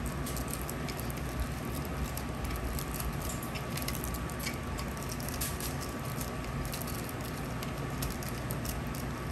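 Small plastic rhinestone boxes and bags being handled: scattered light clicks and rustles over a steady low background hum.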